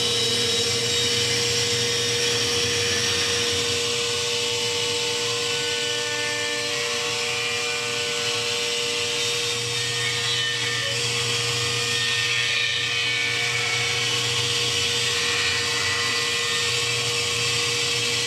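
Table-mounted wood router running at constant speed, its spinning bit rounding over the edge of a wooden cutting board fed along it by hand. It holds one steady pitch under an even cutting hiss, with no change in speed.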